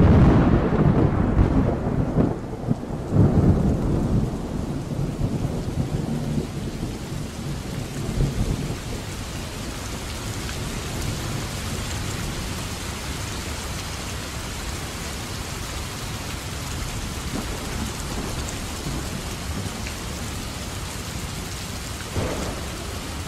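Rain falling with thunder: loud thunder rumbles in the first few seconds that die away by about nine seconds in, leaving a steady, even hiss of rain.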